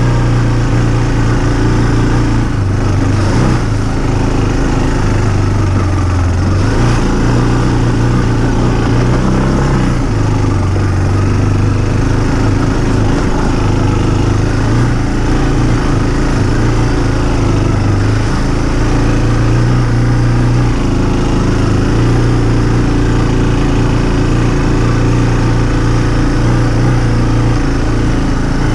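Small engine of an off-road vehicle running continuously while being ridden, its engine speed rising and falling a little.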